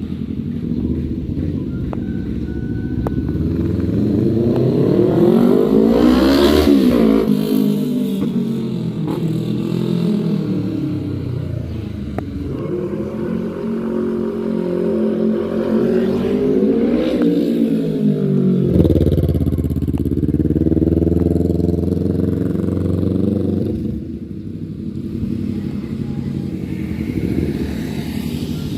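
Kawasaki Ninja 400 parallel-twin engine sounding through an Akrapovic full exhaust as the motorcycle rides past. Its pitch climbs to a peak and drops away twice, about a quarter of the way in and again past the middle, then settles into a steadier low note.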